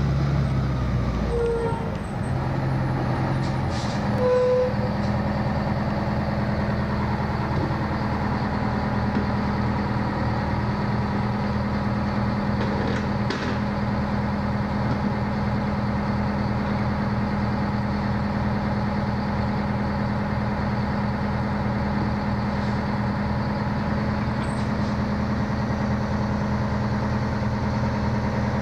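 Fire engine's diesel engine running. Its note changes in the first few seconds as the truck comes to a stop, then it idles steadily.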